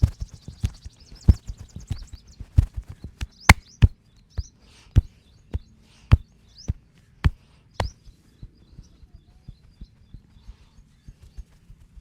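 Hands slapping and tapping on a head in a percussive head massage: sharp, irregular slaps, one to three a second, turning lighter and quicker about eight seconds in.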